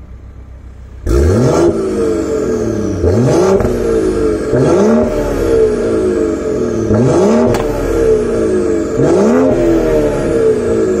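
BMW 540i xDrive (G30) 3.0-litre turbocharged inline-six revved repeatedly through an aftermarket valved exhaust with the valves open. The sound starts loudly about a second in and is followed by about five rev blips, each rising in pitch and falling back, a couple of seconds apart.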